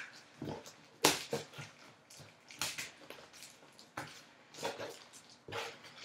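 Scissors and hands working packing tape on a cardboard box: a string of short, irregular rasping rips and scrapes, the loudest about a second in.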